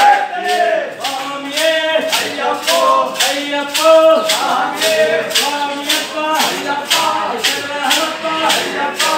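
Men's voices singing an Ayyappa devotional chant over a steady percussion beat of about two and a half strokes a second.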